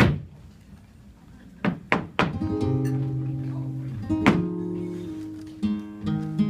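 A loud single stamp of a flamenco dancer's shoe on the wooden stage, then a few sharp strikes about two seconds in, after which an acoustic flamenco guitar plays ringing chords in an alegrías. Further sharp footwork strikes land over the guitar near the middle and end.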